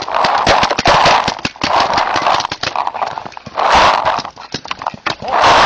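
Rapid, irregular cracks and knocks of paintball markers firing and paintballs striking wooden cover, mixed with several louder bursts of rushing noise.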